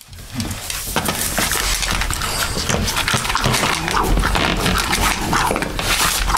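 Dog eating greedily from a stainless steel bowl: rapid, irregular crunching and chewing with clicks against the bowl, starting about a second in.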